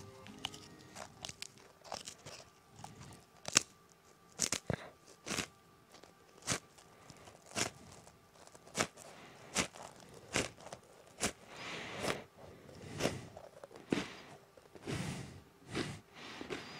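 Close-up crunching and sharp clicks, irregular, roughly one a second, with softer, longer scraping noises in the second half.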